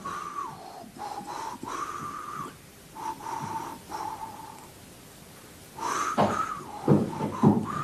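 A few soft, held whistled notes stepping between two or three pitches, like someone idly whistling a slow tune, followed by footsteps near the end.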